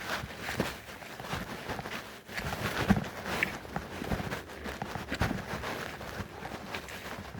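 Footsteps walking along a woodland trail, uneven steps over the ground with a few louder ones about three, four and five seconds in.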